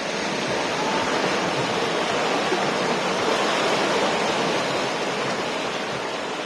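Ocean surf with big waves breaking and washing up the shore, a steady rushing that swells through the middle and eases slightly near the end.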